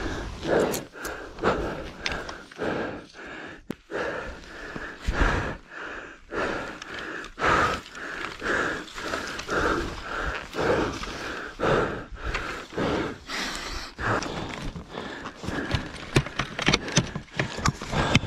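A man breathing hard and rhythmically, about one heavy breath a second, with footsteps on the ground, as if from exertion.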